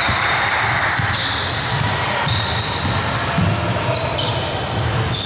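Basketball game sounds on an indoor court: the ball bouncing, short high-pitched sneaker squeaks on the floor, and players' voices in the background.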